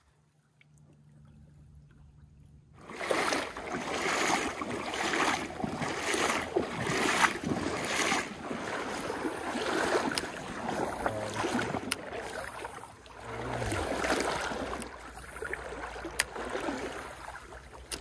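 Water sloshing and splashing in surges about once a second, the sound of someone wading through a stream. It starts about three seconds in, after a faint hum, with a few sharp ticks on top.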